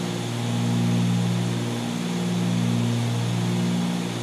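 Cabin drone of the Cessna 310Q's twin piston engines and propellers running at climb power. The drone swells and fades about every two seconds, the beat of two propellers turning at slightly different speeds.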